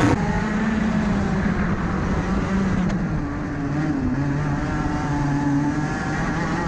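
Racing kart engine heard from the onboard camera, running at speed; its note shifts lower as the kart slows into a corner, then holds steady.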